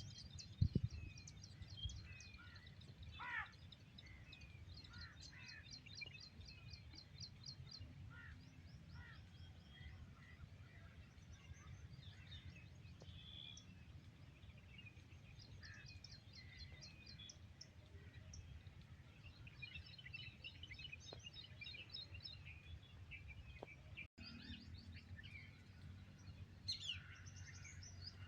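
Faint mixed birdsong: several small birds chirping and giving rapid high trills, with a falling call about three seconds in, over a steady low outdoor rumble. A sharp thump just under a second in is the loudest sound.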